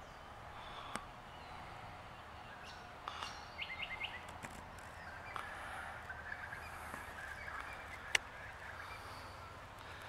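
Birds calling in open bushland, with a quick run of about five short call notes a little before four seconds in and fainter calls scattered through. A single sharp click a little after eight seconds is the loudest sound.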